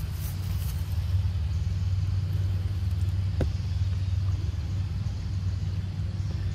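Steady low rumble, with a single sharp click about three and a half seconds in.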